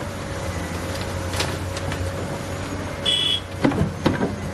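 Heavy construction machinery engine running steadily at a constant speed. About three seconds in there is a short high beep, followed by a few clanks near the end.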